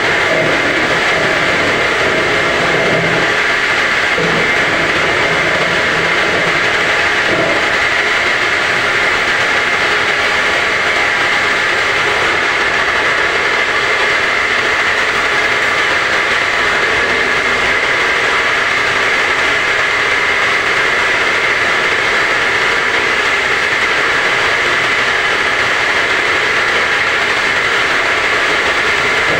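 Home-assembled semi-automatic round gallon washing machine running: a loud, steady, unbroken mechanical noise that holds level throughout.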